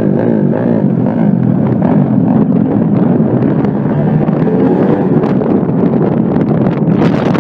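Small motorbike engines revving loudly and continuously, their pitch wavering up and down.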